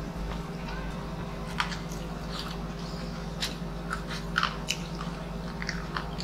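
Close-miked eating sounds: two people chewing rice and crispy fried pork, with scattered short crunches and mouth smacks over a steady low hum.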